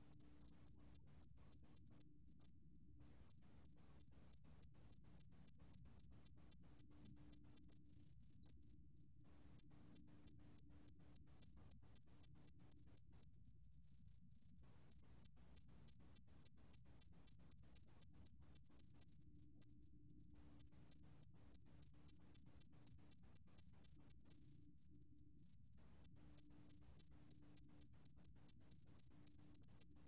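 Saegeumbit-jongdari (새금빛종다리) cricket singing at 20 °C: a high, pure-toned chirp repeated rapidly, about eight pulses a second, broken every five or six seconds by a continuous trill lasting a second or so.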